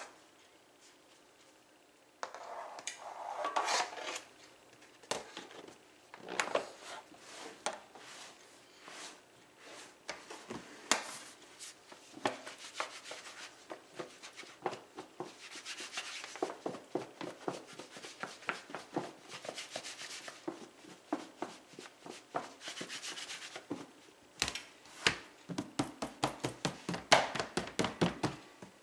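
Raw chicken wings and tenders being shaken in flour inside a lidded plastic bowl: the pieces knock and slide against the plastic in irregular bursts of clatter and rustling, starting about two seconds in.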